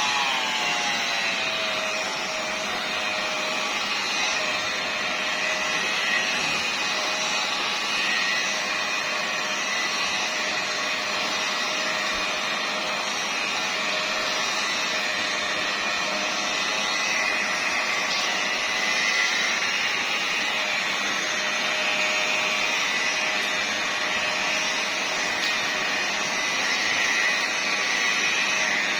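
Electric machine polisher running steadily while polishing car paint, a continuous whirring hum. Its pitch drops over the first second or two, then holds steady.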